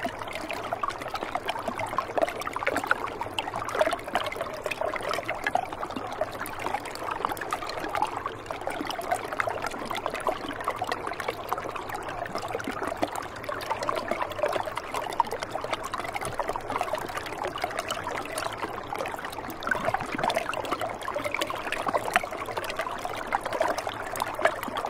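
Shallow river water trickling over rocks beneath an edge of ice and snow: a steady babble made of many small splashes.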